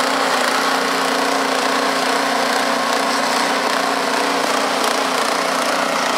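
Gas two-stage snowblower engine running steadily at working speed while the machine throws snow, with an even rushing noise over the engine's hum.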